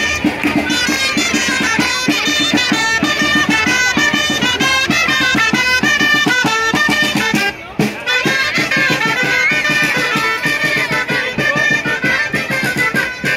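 A band of gralles (Catalan double-reed shawms) playing a loud traditional march tune in unison, over a steady drum beat. The music breaks off for a moment just past halfway, then carries on.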